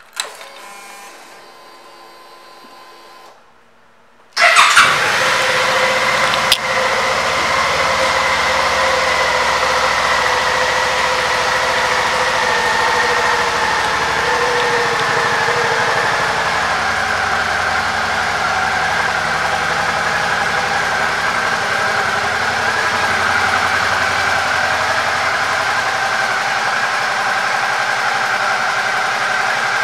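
Suzuki V-Strom 650's 645 cc V-twin: a click and a short quiet whir as the ignition comes on, then the engine cranks and starts about four and a half seconds in and settles into a steady idle, easing slightly lower in pitch midway.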